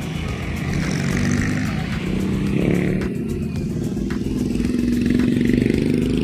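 A motorcycle engine running close by in street traffic, getting louder toward the end.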